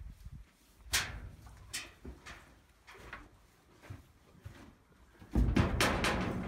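Sharp knocks and clunks inside a metal horse trailer, a few single ones at first, then a louder rumbling clatter from about five seconds in.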